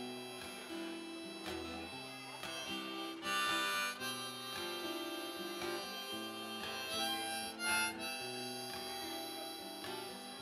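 Harmonica played from a neck rack over a fingerpicked and strummed acoustic guitar: the instrumental intro of a folk song. The harmonica swells loudest twice, at about three seconds in and again near eight seconds.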